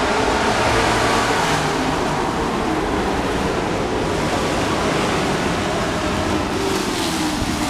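A pack of dirt-track race trucks running at speed around the oval, a loud steady wash of engine noise; near the end one engine's pitch drops as a truck goes by.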